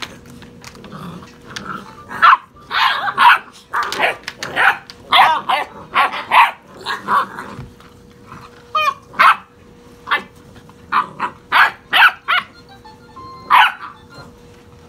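Basset hound puppies yapping and barking in short, high-pitched bursts, many in quick succession, while they play-fight.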